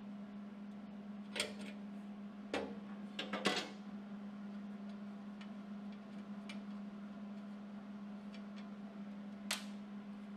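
A few sharp clicks and knocks from metal parts and tools being handled, mostly between one and four seconds in and once more near the end, over a steady low hum.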